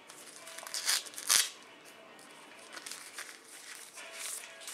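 Paper and plastic packaging being handled: short crinkling rustles, the loudest a little over a second in and another near the end.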